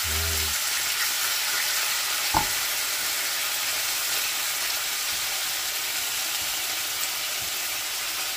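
Raw beef cubes searing in hot oil in a frying pan, a steady sizzle throughout. A single sharp click about two and a half seconds in stands out above the sizzle.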